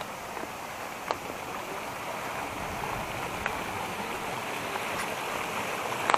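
Creek water flowing over rocks, a steady rush that grows slightly louder, with a few brief clicks.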